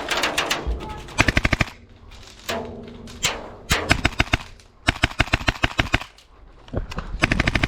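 Airsoft gas blowback rifle, a Tokyo Marui MP7 running on HPA, firing several short full-auto bursts of rapid, evenly spaced shots, with pauses between them.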